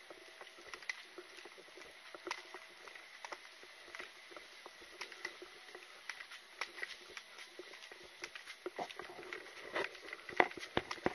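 Irregular light clicks and taps of footsteps and carried gear rattling as a person walks, growing denser and louder near the end, over a faint steady high tone.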